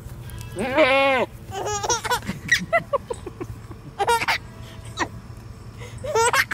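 A baby laughing in short squeals and giggles, with an adult laughing along.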